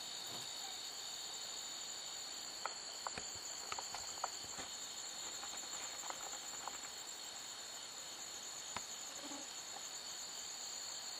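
Crickets chirping in a steady chorus, held on two high pitches, with a few faint sharp clicks here and there.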